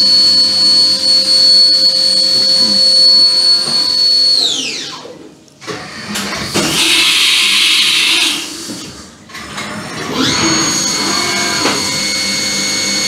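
CNC milling machine spindle whining steadily as an 8 mm cutter mills flats in aluminium, then winding down about four seconds in. A hiss follows for a couple of seconds while the tool is changed, and about ten seconds in the spindle spins back up with a rising whine that settles to a new steady pitch for the 3 mm slot drill.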